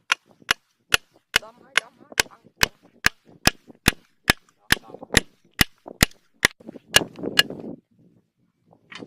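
A steady run of about eighteen sharp knocks or snaps, a little over two a second, stopping about seven seconds in, with softer rustling between them.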